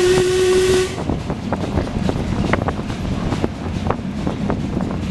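Steam whistle of a Sri Lanka Railways B1A steam locomotive sounding one steady blast that cuts off about a second in. After it, the locomotive runs on, heard from its tender, with a steady rumble and irregular clicks and rattles from the track and the tender.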